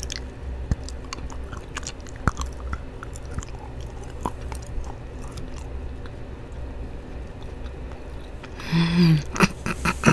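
Close-miked chewing and biting of a chocolate spoon: small wet mouth clicks and crunches over the steady low hum of a microphone with its gain turned up high. About nine seconds in comes a short voiced murmur.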